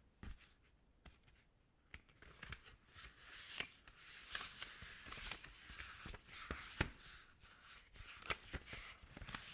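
Pages of a passport being leafed through and handled close to the microphone. Soft paper rustling with light ticks and taps begins about two seconds in.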